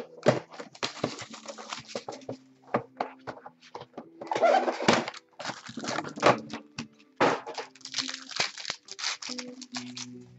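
Trading cards and their packs being handled by hand: a quick, irregular run of clicks and snaps as cards are flicked and slid against each other, with a few longer rustles of packaging.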